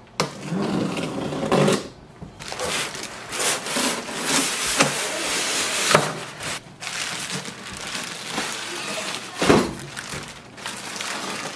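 Cardboard box being unpacked: a utility knife slitting the packing tape, then cardboard flaps, styrofoam end caps and a plastic bag being handled, giving irregular scraping, rustling and a few sharp knocks.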